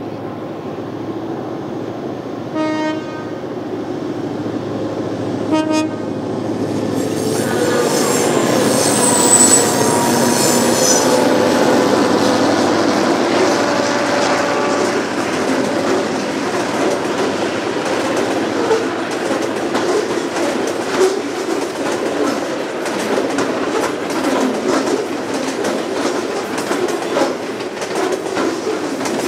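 A grain train hauled by three Clyde-EMD diesel-electric locomotives: the horn sounds two short blasts about three seconds apart as the train approaches. The locomotives then pass, growing louder with a high wheel squeal. Loaded grain hopper wagons follow, rolling by with a steady clickety-clack over the rail joints.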